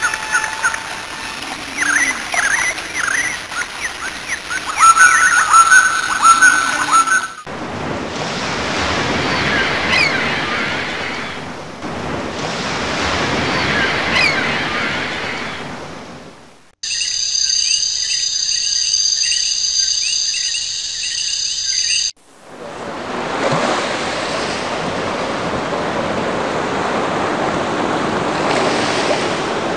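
A montage of nature sound effects joined by abrupt cuts: birds chirping, then ocean waves with two swells rising and falling away, a steady high buzzing for about five seconds, then steady surf.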